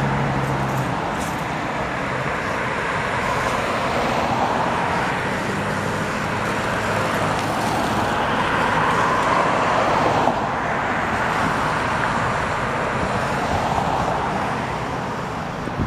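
Street traffic noise: cars passing on a wet road, their tyre hiss swelling and fading several times, with a low engine hum near the start.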